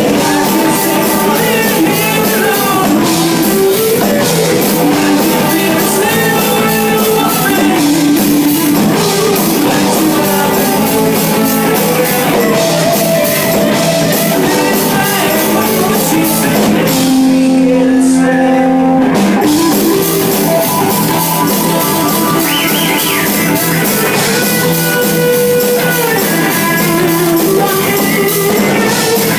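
Rock music with guitar and drums. About seventeen seconds in, the high end drops out for a couple of seconds while a held note sounds, then the full band returns.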